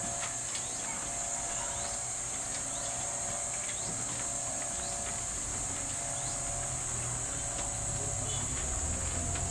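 Outdoor ambience: a steady high-pitched drone like an insect chorus, with scattered short rising chirps and a low hum that grows louder near the end.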